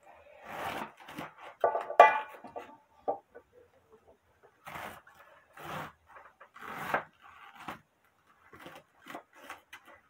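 Kitchen knife slicing through a fibrous banana blossom on a wooden cutting board: a series of uneven crunching cuts, with the blade knocking the board. The loudest is a sharp click about two seconds in.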